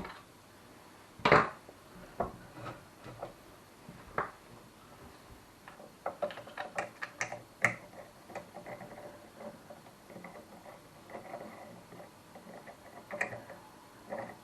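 Scattered clicks and knocks of small metal tap parts and tools being handled and fitted: one louder knock about a second in, then a run of quick light clicks in the middle and a few more near the end.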